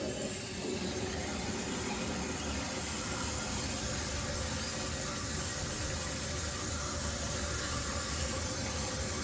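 New toilet fill valve running after the water supply is turned back on, with a steady hiss of water flowing into the tank as it refills.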